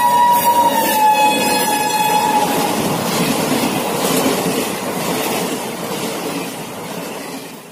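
A train passing at speed, the locomotive's horn sounding at the start, dropping a little in pitch about a second in and cutting off after about two and a half seconds. Then the coaches rush by, their noise fading away near the end.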